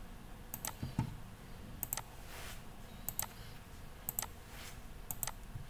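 Computer mouse button clicks, faint and mostly in quick press-and-release pairs, about five of them spaced roughly a second apart.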